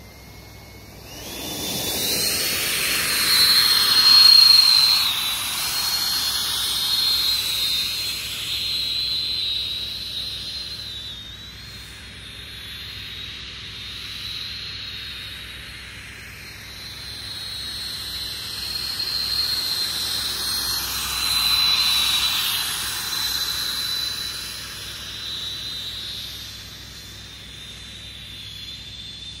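Four 120 mm electric ducted fans of a large-scale RC Harrier jump jet spooling up with a rising whine about a second in, then running with a steady high whine over a jet-like rush as the model flies. It grows loud twice, around four seconds in and again past twenty seconds, as the model passes close.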